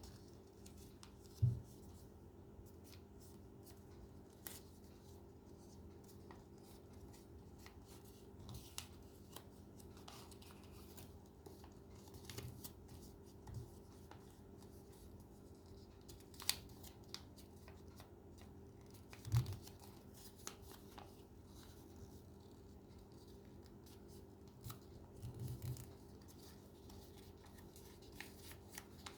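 Paper being handled and worked by hand for an origami model: faint scattered rustles and crisp clicks, with a few soft thumps on the work surface, over a low steady hum.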